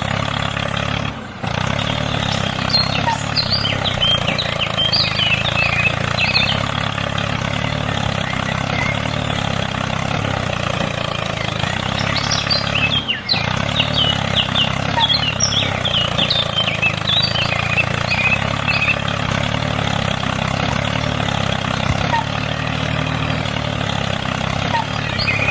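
A small motor running with a steady hum, with small birds chirping over it in two stretches.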